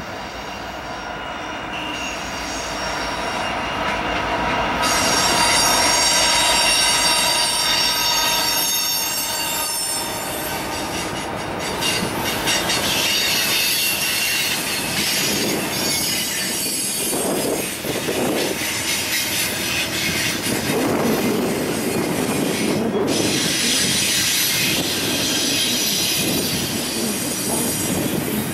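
Norfolk Southern double-stack intermodal train passing, led by an SD70ACe and an ES44AC diesel locomotive: the engines grow louder and go by in the first several seconds, then the well cars roll past with steady wheel squeal and rail clatter.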